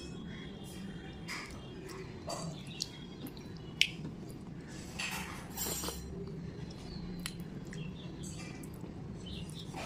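Eating sounds: a mouthful of khichdi being chewed, then fingers squishing and mixing soft khichdi in a steel plate, with scattered small clicks and one sharp click against the plate a little under four seconds in. A steady low hum runs underneath.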